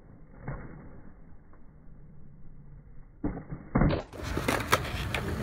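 Skateboard rolling on stone tiles, then a cluster of sharp clacks as the board is popped and landed, the loudest a little under four seconds in.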